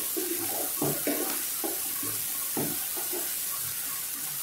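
Chopped onions sizzling in hot oil in a nonstick kadhai, frying toward light pink. A wooden spatula stirs them and scrapes the pan in uneven strokes over a steady hiss.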